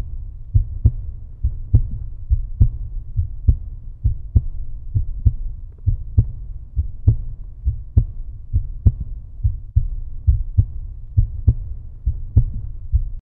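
Heartbeat-like end-screen sound effect: paired low thumps about every 0.9 s, a strong beat and a weaker one, over a low rumbling drone. It cuts off abruptly near the end.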